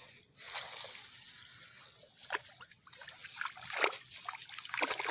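Shallow rice-paddy water splashing and trickling, with small splashes that come more often near the end.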